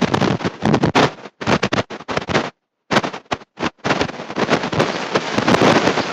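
Loud, harsh crackling bursts of distorted noise, broken up by short dead-silent dropouts about two and a half and three and a half seconds in.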